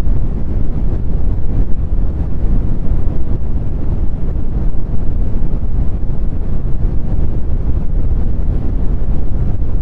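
Brown noise: a steady, loud, deep rush with most of its weight in the bass, fading toward the treble, with no tones or rhythm.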